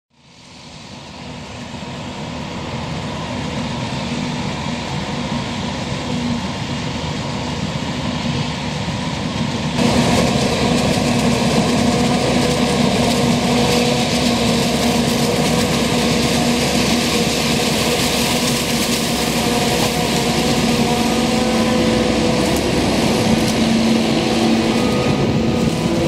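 Self-propelled forage harvester chopping corn with a tractor and trailer running alongside: a steady, heavy run of diesel engines under load. The sound fades in over the first couple of seconds and gets suddenly louder about ten seconds in.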